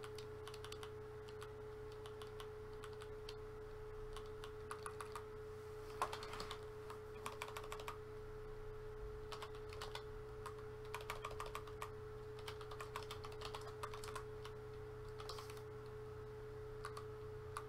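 Typing on a computer keyboard: irregular runs of faint key clicks, over a steady low electrical hum.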